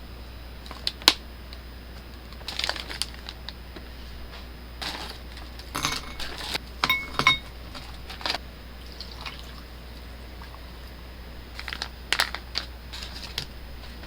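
Kitchen utensils and tableware being handled: scattered light clicks and knocks in small clusters, with a brief ringing clink about halfway through, over a low steady hum.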